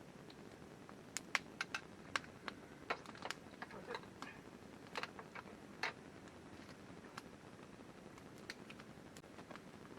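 Irregular light clicks and taps, a dozen or more in the first six seconds and sparser after, over a faint steady background hiss.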